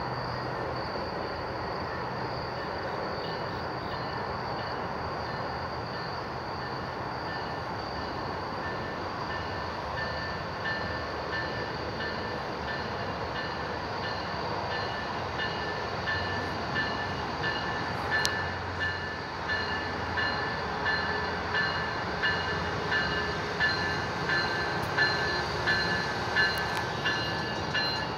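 Amtrak passenger train with a Siemens Charger diesel locomotive approaching a station. A bell rings steadily, its strokes growing louder over the last dozen seconds, while a low rumble from the train builds.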